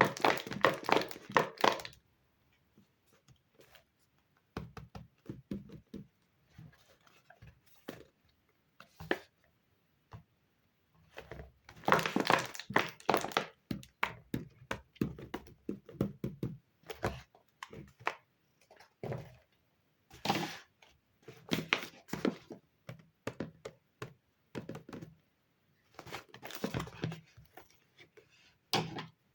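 Paper and plastic being handled: crinkling and rustling in irregular bursts, broken by light taps and thunks, with short quiet gaps between.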